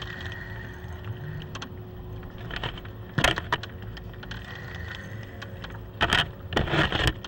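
Steady low rumble of a small boat on open water, with a faint steady hum. Brief loud noisy bursts break in about three seconds in and twice near the end.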